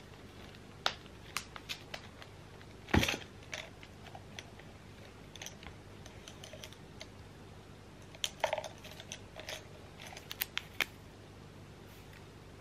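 Scattered sharp clicks and taps from handling a stitched cylindrical makeup brush case as it is unfastened and opened and brushes in mesh sleeves are drawn out, with a louder knock about three seconds in.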